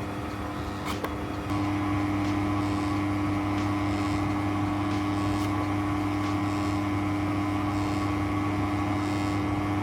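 Electric pasta extruder running with a steady motor hum while casarecce are extruded and cut; a couple of clicks about a second in, then the hum steps up louder and holds.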